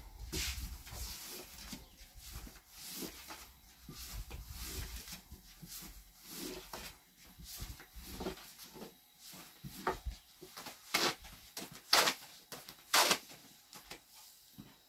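Thin wooden rolling pin knocking and rolling on a wooden board as flatbread dough is rolled out, with a series of light clicks and taps. Near the end come three sharper knocks, about a second apart.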